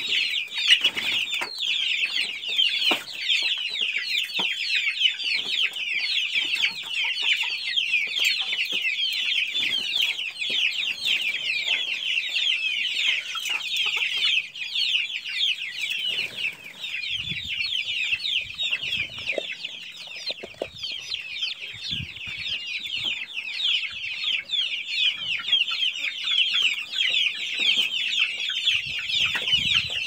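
A brood of chicks peeping without pause, a dense chorus of rapid falling chirps, with hens clucking now and then.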